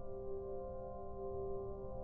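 Background soundtrack music: a single chord of several tones held steadily without change.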